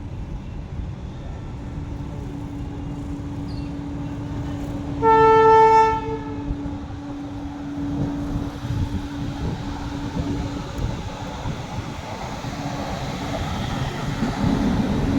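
Train approaching through a station without stopping: the locomotive sounds one horn blast of about a second, about five seconds in, over a steady hum. The rumble of the passing train builds toward the end.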